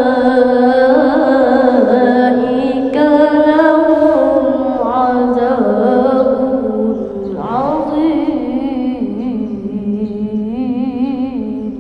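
A man's voice in melodic Quran recitation (tilawah), drawing out a long melismatic phrase on held, ornamented notes. About seven and a half seconds in the voice breaks and starts again with an upward glide, and the last notes waver.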